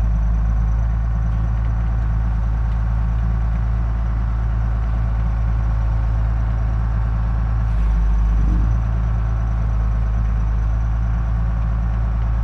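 Wheel loader's diesel engine running steadily, heard from inside the cab, with a brief louder surge about eight seconds in.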